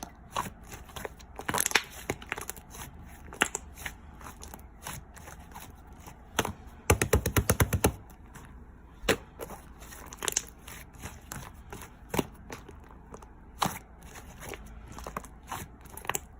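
Light green slime being handled: scattered sharp clicks and pops as it is squeezed and stretched, with a quick run of crackling pops about halfway through.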